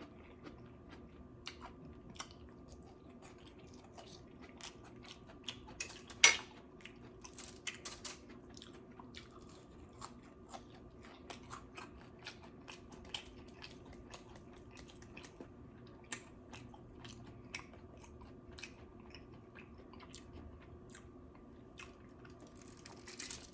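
Close-miked chewing and biting of food: irregular wet mouth clicks and crunching, with one louder click about six seconds in.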